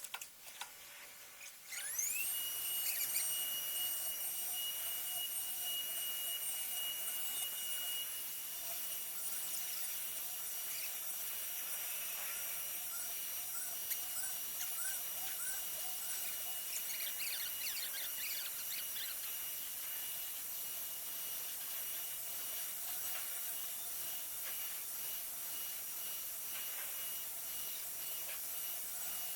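CNC woodworking lathe's spindle spinning up with a rising whine about two seconds in, then running at a steady high-pitched whine over a hiss while it machines wooden chair legs, with a few brief squeals partway through.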